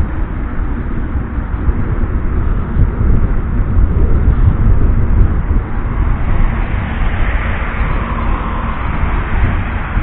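Wind buffeting the microphone of a camera riding along at speed, a loud steady rumble with road hiss. A hiss swells and fades between about seven and nine seconds in.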